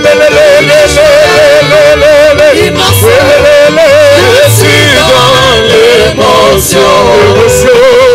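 Live worship band playing a gospel song: several voices singing wavering, held lines over keyboard, electric guitar, bass and drums, with cymbal hits.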